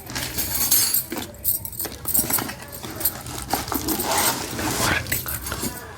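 Unboxing handling noise: irregular light metal clinks and rattles with rustling, as the hand mixer's beaters and packaging are handled.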